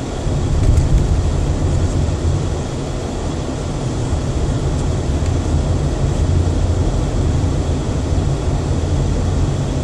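Steady low rumble of a car's engine and tyres on the road, heard from inside the cabin while driving; it gets a little louder about half a second in.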